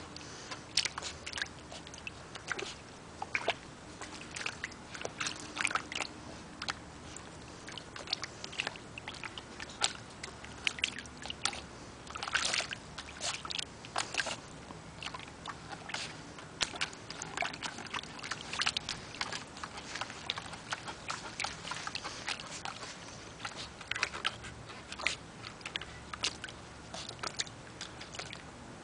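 Schipperke dog pawing and splashing at water in a shallow plastic mini pool: many irregular slaps and sloshes, some louder than others.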